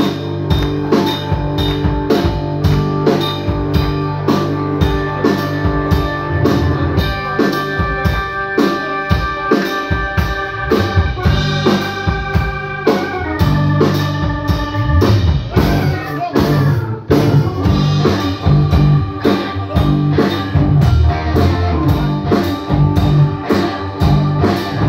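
Live rock band playing an instrumental passage: drum kit keeping a steady beat under electric guitar, bass guitar and violin.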